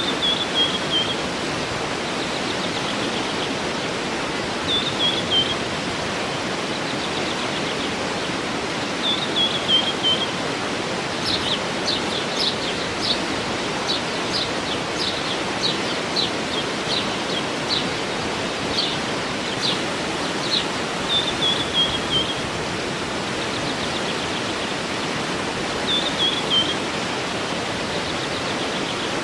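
Steady rush of a waterfall with songbirds over it: one bird repeats a short falling trill every few seconds, and another gives a run of sharp, high chirps about once a second through the middle.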